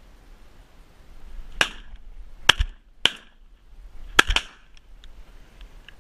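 Shotgun shots at wood pigeons: about five sharp reports within three seconds. The first is about one and a half seconds in, two more follow a second and half a second later, and the last two come almost together near four seconds. That is more shots than a single gun holds, so both hunters' guns are firing.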